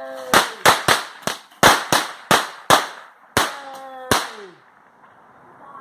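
A consumer firework going off in a rapid string of about ten sharp bangs, roughly three a second, that stops a little after four seconds in.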